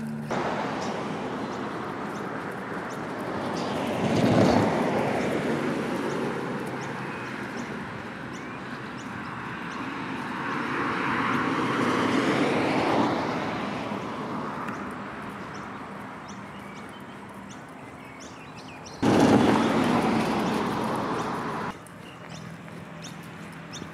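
Cars passing on a road, their noise swelling and fading several times. Near the end a louder stretch of noise starts and stops abruptly.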